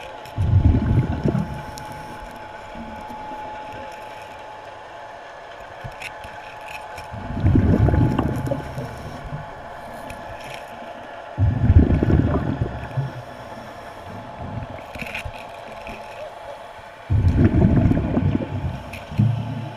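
Scuba diver's exhaled air bubbling out of the regulator underwater: four bursts of low rumbling bubbles, a few seconds apart, one per breath.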